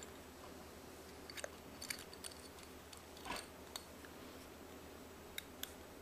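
Faint small metallic clicks and a short scrape as a spiral lock retaining clip is worked into the wrist-pin groove of a piston: a cluster of clicks about a second in, a longer scrape a little past the middle, and two last clicks near the end.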